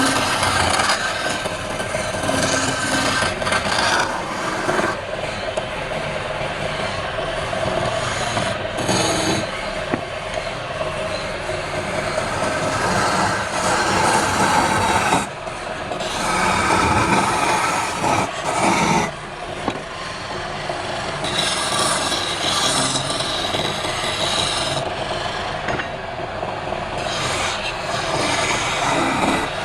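Wood lathe spinning a piece of palm wood while a tool scrapes against it: a continuous rasping, its pitch shifting as the cut changes, with two brief breaks.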